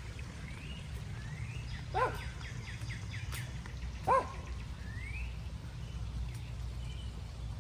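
Two short animal calls, each rising then falling in pitch, about two seconds apart. Faint short rising chirps come in between, over a steady low rumble.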